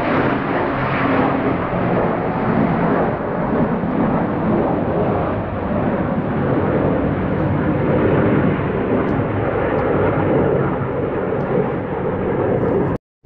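Loud, steady roar of military aircraft passing overhead in an air parade, cutting off suddenly near the end.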